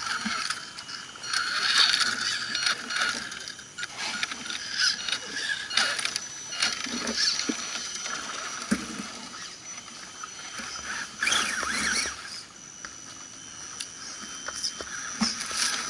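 Electric scale RC crawler trucks' motors and gearboxes whirring and clicking in uneven spurts as the trucks crawl over tree roots and dry leaves.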